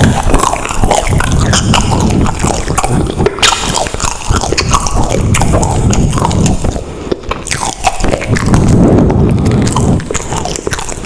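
A person chewing food close to the microphone, with wet mouth sounds and many small irregular clicks.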